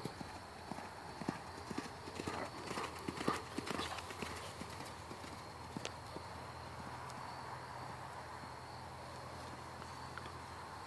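Welsh pony's hoofbeats on the sand arena footing as it goes past at a canter, dying away after about five seconds as it moves off.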